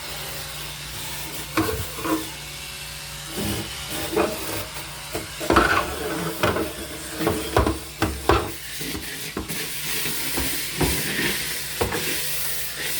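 Cordless electric spin scrub brush running, scrubbing with soap and water, with a steady low hum and hiss, and scattered knocks and clatters. The hiss grows stronger near the end.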